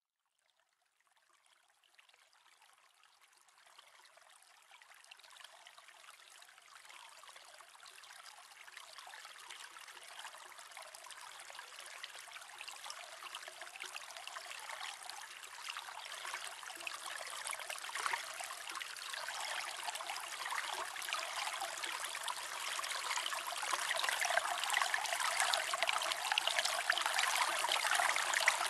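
Aquarium water trickling and splashing, as from a filter outflow at the surface. It fades in from near silence in the first couple of seconds and grows steadily louder throughout.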